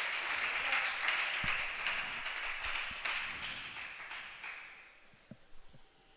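Small group of spectators applauding a won point in a table tennis match, the clapping fading out over about four seconds. A few soft knocks follow near the end.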